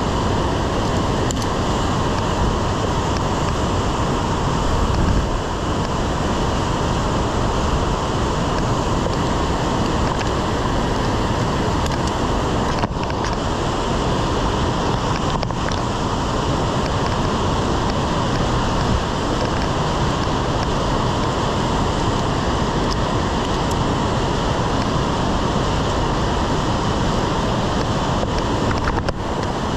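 Steady rush of whitewater from the Uncompahgre River pouring over boulders in a narrow rock gorge. About five seconds in there is a brief low rumble of wind on the microphone.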